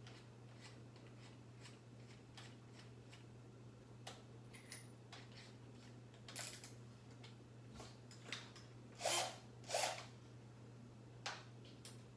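Scattered small clicks, taps and rubs of handling a cordless drill and its bits while picking out and changing the bit, with two louder clacks about nine and ten seconds in. A steady low hum runs underneath.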